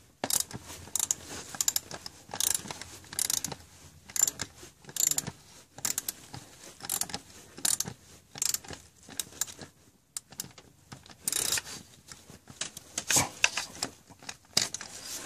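Hand ratchet and socket clicking in short bursts, a little more than one a second, as it is worked back and forth to tighten a 12-point star bolt on a Mercedes thermostat housing.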